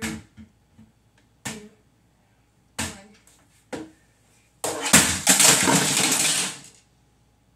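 A small plastic LEGO model being smashed against a dresser top: five sharp knocks in the first four seconds, then about two seconds of loud, dense plastic clattering.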